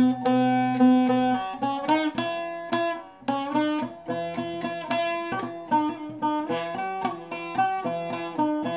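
Bağlama (Turkish long-necked saz) played solo: a note held ringing for about the first second and a half, then a quick run of plucked melody notes with the strings ringing on underneath.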